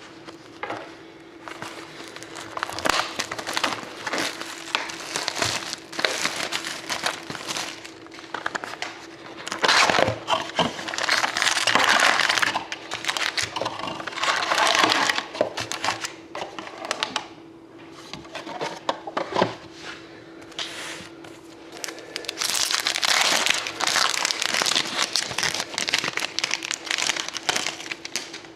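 Plastic wrapping crinkling and tearing in irregular bursts as a sealed box of hockey trading cards and its packs are opened, heaviest about a third of the way in and again near the end.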